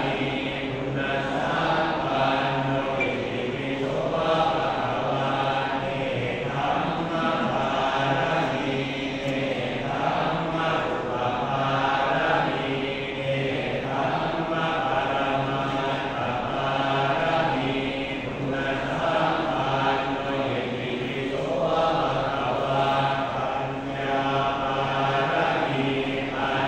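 Buddhist monks chanting together in a steady low recitation, pausing briefly every few seconds between phrases. This is the chant of a Thai amulet consecration (plook sek) ceremony.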